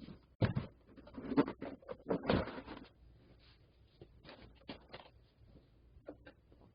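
Irregular scraping, rubbing and clicking handling noises, densest and loudest in the first three seconds, then sparser scrapes and clicks.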